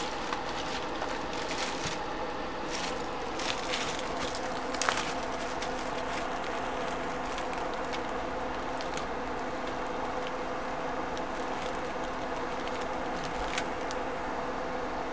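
Bench smoke extractor fan running with a steady whir and hum, with scattered light clicks and taps over it, the sharpest one about five seconds in.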